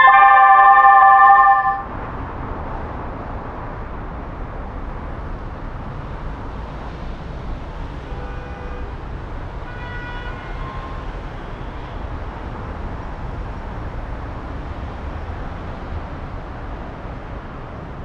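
Electronic siren loudspeaker array sounding a loud, steady chord of several tones for about two seconds, then cutting off. Steady outdoor background noise with a low rumble follows, with a couple of faint distant tones about halfway through.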